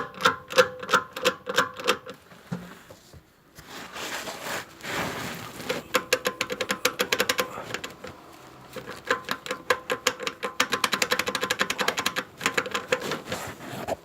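Runs of rapid clicking from the worn left front half-shaft of a BMW X5 E53 as it is worked by hand, with a few seconds' break after the first run; the clicking comes from the badly worn inner joint.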